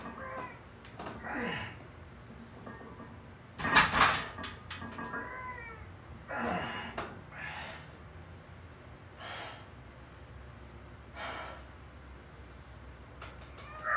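A lifter's forced exhales and short falling strained groans, repeated every second or two, while pressing a heavy barbell off the safety pins. There is one loud knock about four seconds in.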